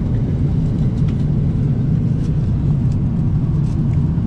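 Steady low rumble of an airliner cabin in flight, with a few faint light clicks on top.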